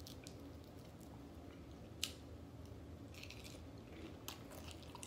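A person chewing fried chicken quietly, close to the microphone, with a few small clicks, the sharpest about two seconds in.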